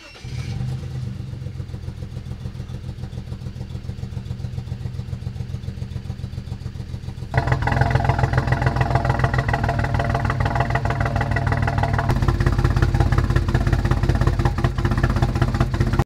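BMW 335i's N54 twin-turbo inline-six starts and runs with a rough, uneven pulsing beat, and gets louder about seven seconds in. The beat is the sign of misfires on cylinders 4, 5 and 6, with the engine running on three cylinders, which the owner traces to a DME MOSFET or injector fault.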